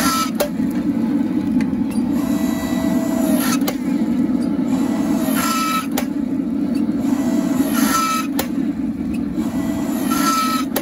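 Engine of a log-splitter forging press running steadily while the hydraulic ram squeezes a glowing Damascus steel billet. Every two to three seconds a hiss rises and ends in a brief whine, with scattered sharp cracks in between.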